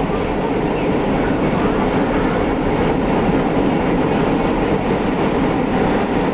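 An electric multiple unit (EMU) suburban train running along the track between stations, heard from the coach: a steady, loud rumble and rush of wheels on rails.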